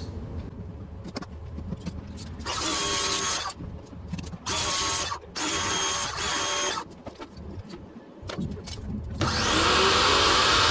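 Power drill run in three short bursts, then held on continuously near the end with a loud, rough whining noise that is called not a healthy noise.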